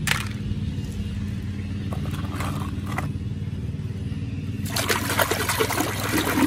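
A few light clicks of small plastic toy cars being picked up, then, from about two-thirds of the way in, water splashing and sloshing as a toy is scrubbed by hand in a basin of muddy water. A steady low hum runs underneath.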